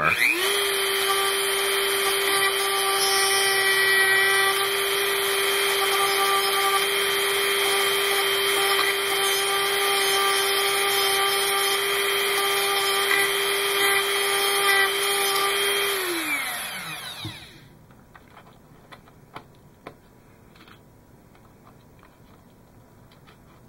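Dremel rotary tool with a small cutting wheel running at a steady high speed, trimming a plastic tube inside a model engine bell. About sixteen seconds in it is switched off and its whine falls as the wheel spins down, followed by a few light handling clicks.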